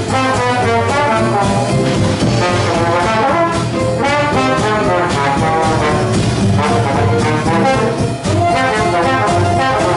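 Trombone playing a New Orleans jazz solo line, its notes gliding and wavering, over a steady bass line from the band.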